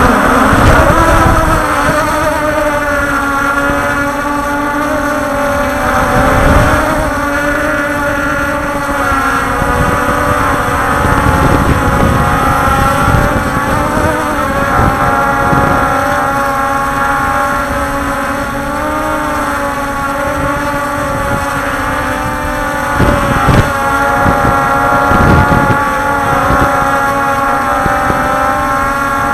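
Electric motors and propellers of a radio-controlled multirotor running steadily, a layered whine whose pitch drifts up and down as the throttle changes, with wind buffeting the onboard microphone.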